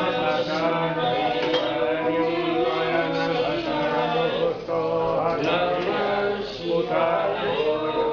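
Men's voices singing a Hindu devotional mantra chant, continuous and steady, with only brief breaths between phrases.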